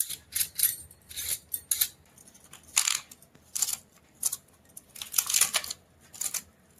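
Knife cutting vegetables, green beans being finely chopped: about a dozen sharp, irregular cutting strokes, some in quick pairs, with short pauses between.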